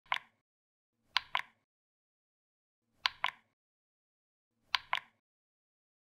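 Selection button on a Dyson Gen5detect cordless vacuum clicking as it is pressed to step through the screen's settings menu: one click, then three quick double clicks about two seconds apart.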